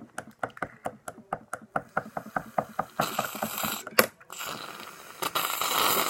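Aerosol can of shaving foam shaken, the ball inside rattling in quick, even clicks, then foam sprayed out with a hiss that is broken by a sharp click about four seconds in.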